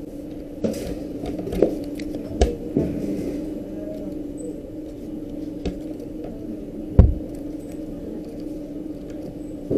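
Scattered clicks and knocks of a cabinet door lock being handled and fitted, the loudest about seven seconds in, over a steady low hum.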